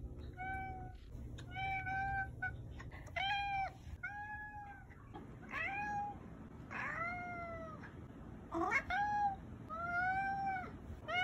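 Domestic tabby cat meowing repeatedly: about eight separate meows, each under a second long, most rising and then falling in pitch.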